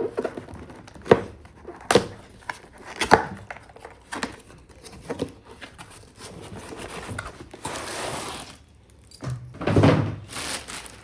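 Packaging of a boxed cast iron pan being opened and handled by hand: a series of sharp knocks and taps, then a longer rustle of packaging about seven seconds in, and a heavier thud near the end.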